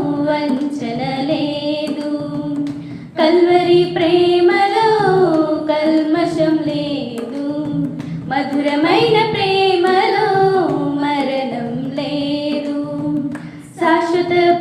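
A group of young women singing a Telugu Christian devotional song together, in long held phrases with short pauses for breath about three seconds in and again near the end.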